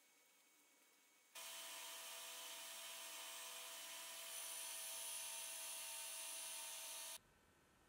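Electric belt grinder running with a steady high whine over a hiss as the end of a steel threaded rod is ground against the belt, throwing sparks. It starts and stops abruptly, a little louder about halfway.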